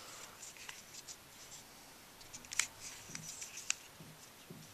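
Faint clicks and scraping of a plastic QJ Skewb Megaminx twisty puzzle being turned by hand, with one sharper click about two and a half seconds in. The new, unlubricated layers turn rough and stiff, scraping against each other.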